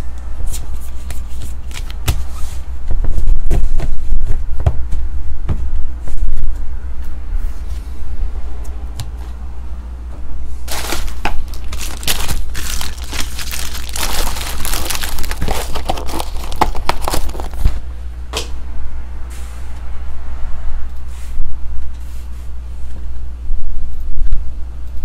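Trading-card packaging being handled and torn open: crinkling, tearing and scraping with scattered knocks, densest in a long stretch through the middle. A steady low hum runs underneath.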